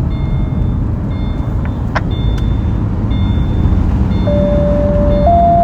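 Fire dispatch two-tone page over the radio: about four seconds in, a steady tone sounds for about a second, then steps up to a slightly higher second tone that is still held at the end. Underneath is a steady low rumble, with faint short high beeps recurring.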